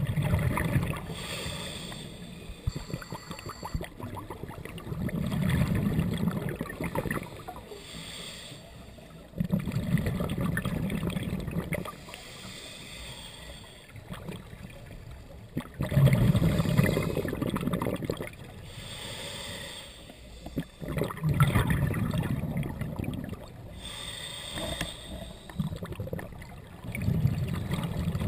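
Scuba diver's regulator breathing underwater: a burst of exhaled bubbles gurgling out about every five seconds, each lasting about two seconds, with quieter hiss between.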